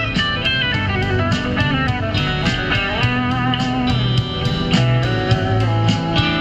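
Background music: a blues-rock track with guitar over a steady beat and bass line.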